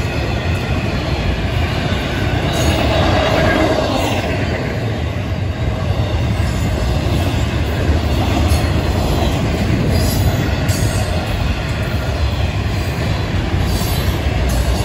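Florida East Coast Railway intermodal freight cars, loaded with trailers and containers, rolling past on steel wheels: a steady, loud rumble with scattered sharp clicks from the wheels on the rails.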